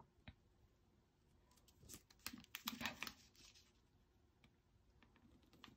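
Faint rustling and light taps of a paper sticker being handled and pressed down onto a planner page, in a cluster about two to three seconds in; otherwise near silence.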